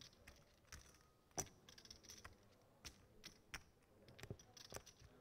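Near silence broken by scattered faint sharp clicks at irregular intervals, the loudest a single click about a second and a half in.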